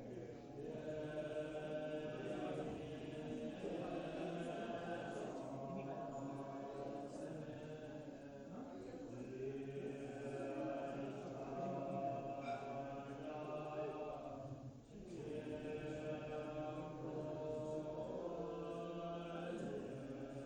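Group of voices chanting a mantra together, long held notes in unison, with a short pause for breath about fifteen seconds in.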